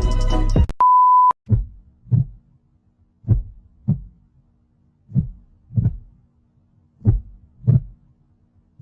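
Music cuts off, then a short steady beep sounds, followed by a heartbeat sound effect: four slow pairs of low lub-dub thumps, about one pair every two seconds.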